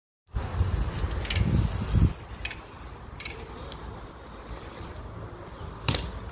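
BMX bike rolling over a dirt lot, with scattered sharp clicks and a stronger knock near the end as it meets the dirt ramp. Under it is a low rumble, heaviest in the first two seconds.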